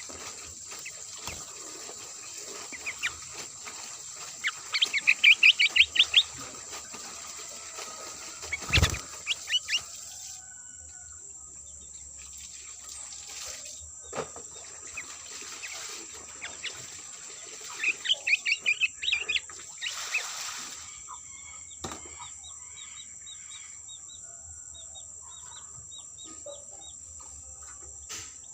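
Sooty-headed bulbul calls: two loud bursts of rapid chirping notes, about five seconds in and again near eighteen seconds, with a few scattered chirps between. A steady high-pitched whine runs underneath, and a single knock comes about nine seconds in.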